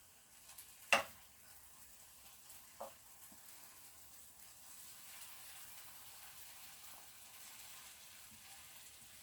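Vegetables frying in a pan with a faint, steady sizzle. There is a sharp clink about a second in and a smaller one near three seconds, as a spoon works the pan.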